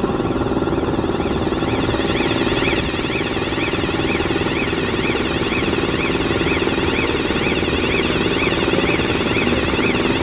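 Girder launcher's power unit running steadily with a fast, even pulsing, under a warbling warning siren that rises and falls in pitch about twice a second, signalling that the machine is moving.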